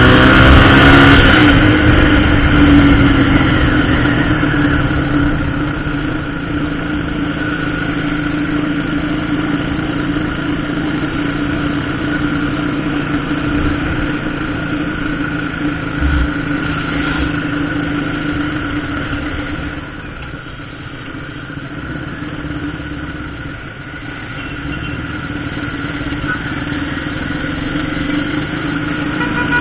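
Motorcycle engine running as the bike rides in traffic, revving up with a rising pitch near the start and then settling to a steady drone; it eases off for a few seconds about two-thirds of the way through.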